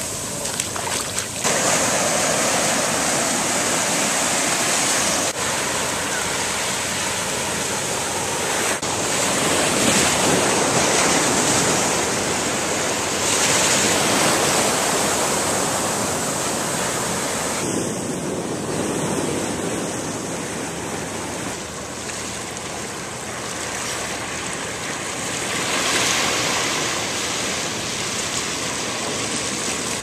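Atlantic surf washing in over the shallows at the water's edge: a steady rush of foaming water that swells louder every few seconds as waves break and run in.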